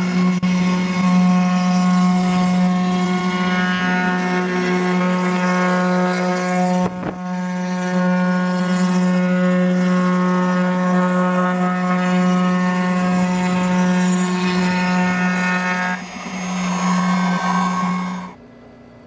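CNC router's spindle motor running at a steady high speed with a strong, even whine while its bit cuts a radiata pine board. There is a brief break about seven seconds in, and the sound cuts off suddenly shortly before the end, leaving only a faint hum.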